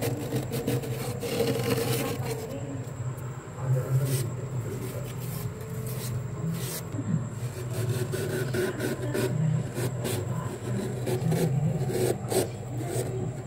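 Fingers scraping and raking soft, flaky frost off a freezer wall: a continuous run of rubbing scrapes made of many short scratchy strokes.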